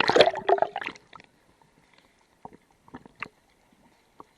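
Water splashing and gurgling in a burst lasting about a second, followed by a few faint scattered clicks.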